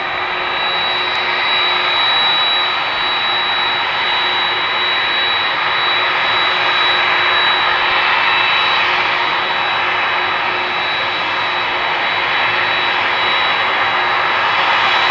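Boeing 767's jet engines running loud and steady: a broad rushing noise with a thin, high whine held on one pitch throughout.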